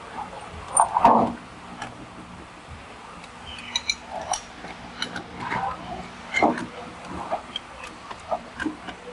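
Light metal clicks and taps as a piston with its rings is worked by hand into a cylinder bore of a Hyundai D6DA diesel engine block. A dog barks briefly about a second in.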